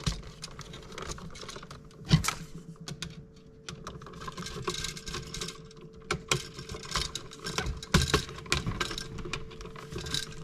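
Irregular small clicks and taps of hands, pliers and wires being worked at an electrical outlet box as wires are twisted together under a wire nut.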